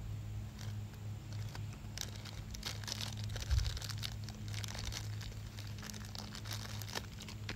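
Clear plastic blind-bag wrapper crinkling in a child's hands, in quick irregular crackles that grow busier about two seconds in. A steady low hum runs underneath.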